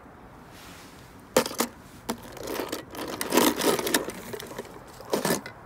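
A toy car dropped into a plastic tub and knocking against the other toy cars in it: a few sharp knocks with a short stretch of rattling and rustling between them.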